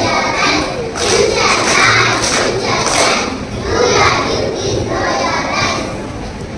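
Children's group song-and-dance number in a large hall: children's voices with a thudding beat about once a second.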